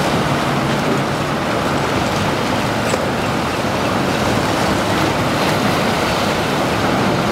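Steady rush of wind and surf, with a boat's motor running underneath.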